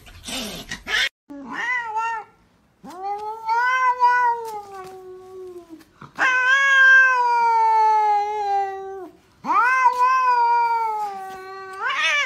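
Domestic cat giving long, drawn-out yowling meows: a short one, then three of about three seconds each, every call rising at the start and sliding slowly down in pitch. A short noisy burst comes just before the first call.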